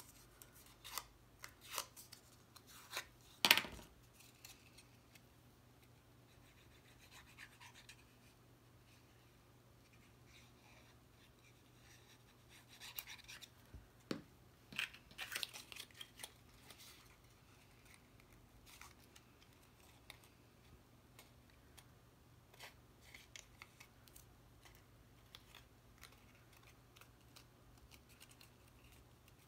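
Faint rustling and scraping of cut cardstock pieces being curved and handled by hand, with scattered light clicks and taps. One sharper tap comes a few seconds in.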